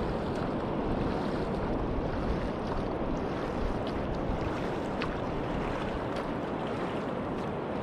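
Steady wash of ocean surf with light wind on the microphone, and a few faint clicks.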